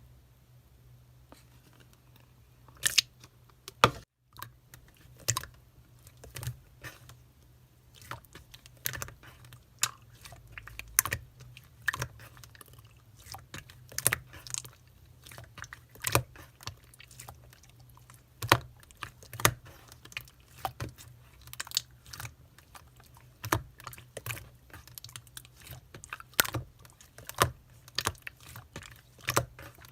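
Green and clear slime being pressed and worked by hand, giving a run of irregular sharp clicks and pops that starts about a second and a half in and goes on at a few a second.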